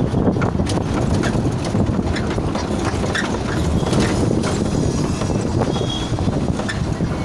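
Steady low rumble of a moving vehicle with air rushing over the microphone, broken by scattered light clicks and knocks.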